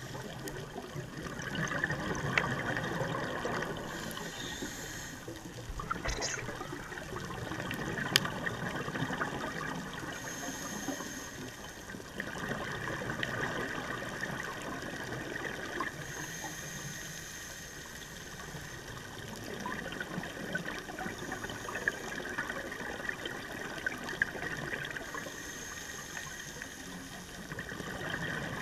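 A scuba diver breathing through a regulator underwater: a short hiss on each inhale and a longer bubbling rush on each exhale, repeating in slow cycles about every five to six seconds, heard through a camera's underwater housing.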